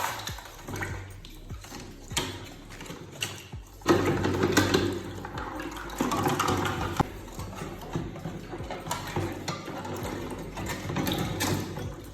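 Running water splashing steadily from about four seconds in, after a few clicks and knocks of handling.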